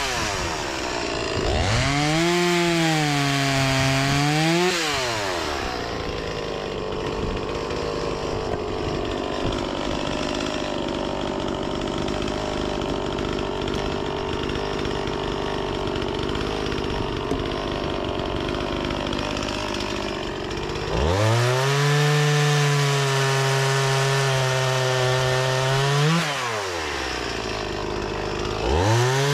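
Two-stroke chainsaw with a freshly sharpened chain, revving up and down, then held under load in a cut through firewood for about fifteen seconds, its note lower and rougher while it cuts. Near the end it revs high and free again, easing off and blipping once more.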